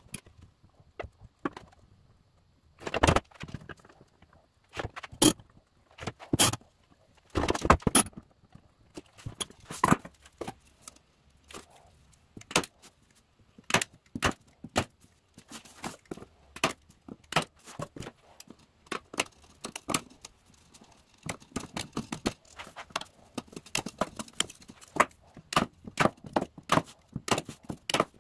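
A string of sharp clicks and knocks: metal bar clamps handled against a wooden box, then a hand staple gun fired again and again, stapling speaker grille cloth to a wooden frame. The staple shots come about once or twice a second in the second half.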